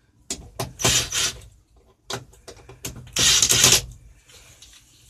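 Cordless drill-driver run in two short bursts, backing the glove-box screws out of the truck's dash, with small clicks and knocks of the bit and screws between them.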